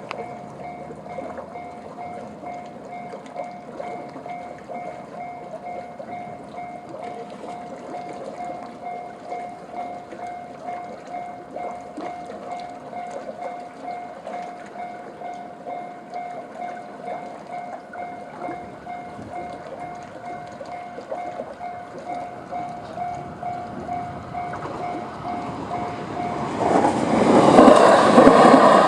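Japanese level-crossing warning bell in the JR standard electronic tone, dinging over and over at an even pace. About 26 seconds in, a Shinano Railway SR1 series electric train passes over the crossing, loud enough to drown out the bell.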